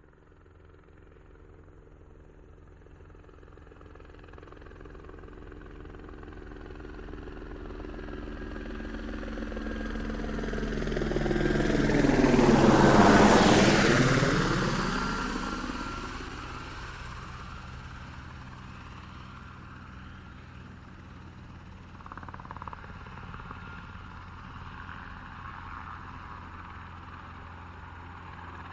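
Helicopter approaching from a distance, growing steadily louder to a peak about halfway through as it passes overhead, its pitch dropping as it goes by, then fading away. A second steady noise layer comes in about two-thirds of the way through.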